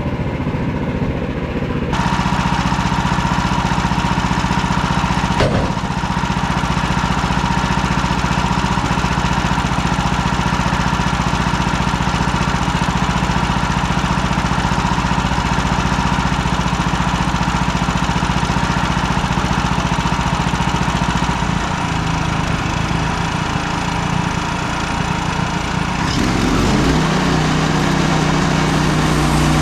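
Woodland Mills HM130 Max band sawmill running, its engine under load as the band blade cuts through hard maple. About two seconds in, the cut starts with a steady hiss and a high whine over the engine. The engine note shifts twice near the end.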